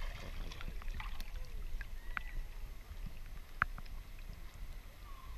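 Shallow seawater sloshing around a camera held at the waterline: a low, muffled rumble with a few faint clicks and small splashes.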